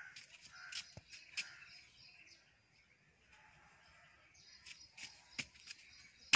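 Faint outdoor background of birds chirping and calling, with scattered light clicks and taps and one sharp tap at the very end.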